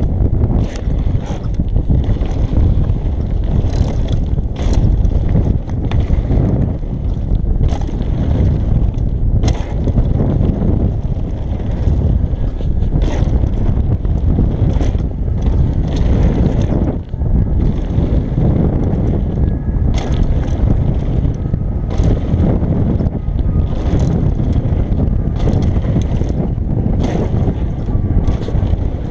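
Wind buffeting the microphone of a camera on a mountain bike riding fast down a gravel trail. Under it, the tyres run on gravel, and the bike rattles and clacks over bumps and jumps many times.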